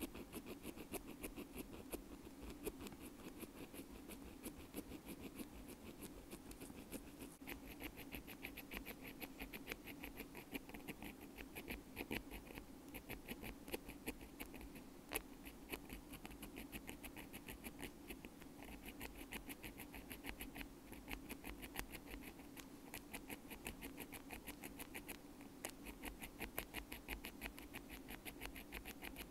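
Close-up ASMR ear-cleaning sound: a bamboo ear pick scratching and scraping in an earbud, a quick, unbroken run of small crisp scratches, with the odd louder click.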